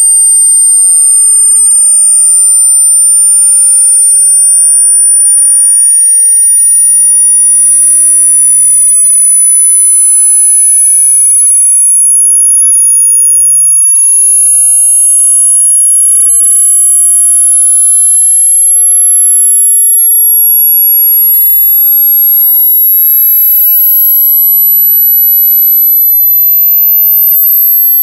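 Synthetic sine-wave test tone for speaker burn-in, loud and steady, sweeping slowly upward in pitch at a very high register. Fainter tones glide up and down underneath it.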